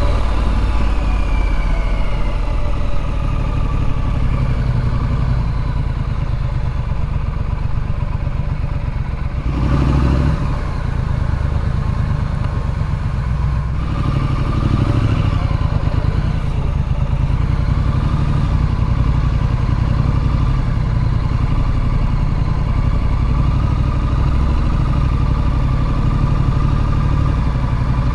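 Triumph Street Scrambler's 900cc parallel-twin engine running steadily as the motorcycle rides along. The engine eases off a little about ten seconds in and picks up again around fourteen seconds.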